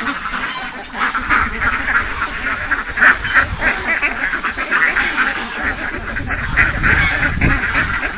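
A large flock of domestic ducks quacking steadily, many calls overlapping, as they crowd round to be fed.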